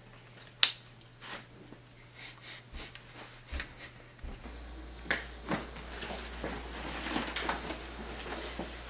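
A single sharp click, then scattered small handling clicks and rustles, with a steady low electrical hum setting in about four seconds in.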